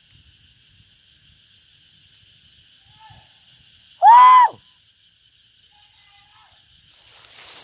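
Steady high insect drone, with one loud, short call about four seconds in that rises and falls in pitch like a whistle, and fainter similar calls either side of it.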